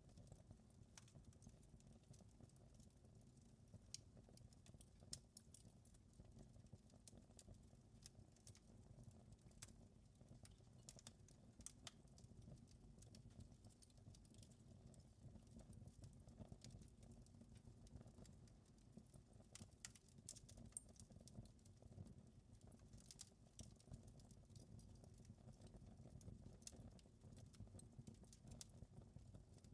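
Faint wood fire crackling: scattered sharp pops and snaps over a low, steady rumble.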